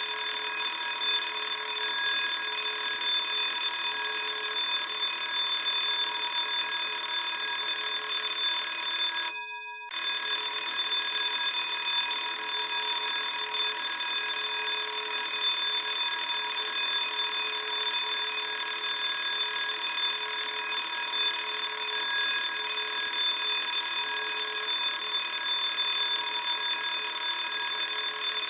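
Classic school bell ringing steadily. The ringing dies away about nine seconds in and starts again half a second later.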